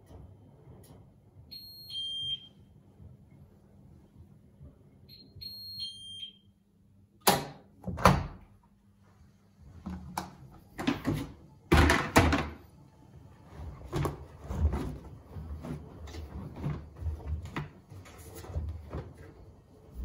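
Miele W1 front-loading washing machine sounding its end-of-programme signal, a two-note electronic beep, high then lower, twice. About seven seconds in come two loud clunks as the door is unlatched and opened, then irregular thumps and rustling as the damp laundry is pulled out of the drum.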